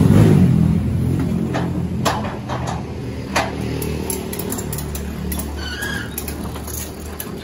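Truck engine running with a steady low note, loudest near the start and easing off. A few sharp knocks about two and three and a half seconds in.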